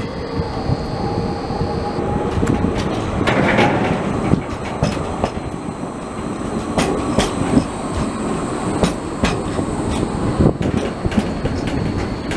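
Škoda 15T low-floor articulated tram running past close by, a steady rolling noise with a string of sharp clicks from the wheels on the rails.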